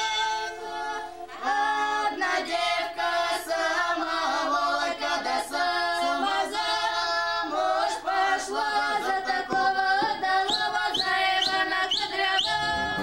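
A group of voices singing a folk song without instruments, with sharp percussive knocks in the rhythm and short rising cries near the end. A held sung tone fades out in the first second.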